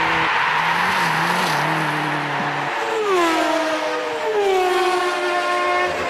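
Rally car engine running hard with a hiss of sprayed gravel. About three seconds in the engine note drops sharply in pitch, and it drops again about a second later.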